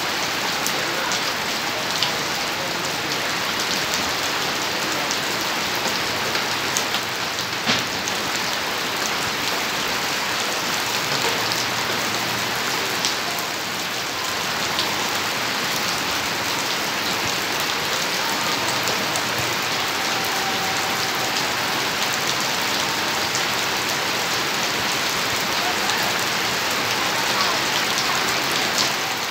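A steady, even hiss like falling rain, with a few faint light ticks scattered through it.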